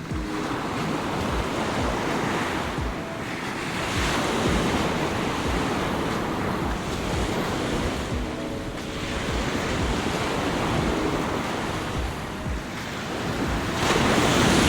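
Heavy Caribbean surf in a norther: big waves breaking and washing up the beach over and over, rising and easing in loudness, with strong wind buffeting the microphone. A wave breaks loudest near the end.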